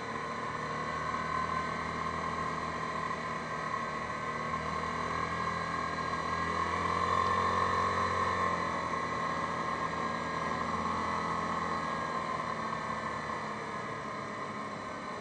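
Yamaha Grizzly 550 ATV's single-cylinder four-stroke engine running steadily at road speed, heard from the handlebars; it grows louder toward the middle and eases off near the end.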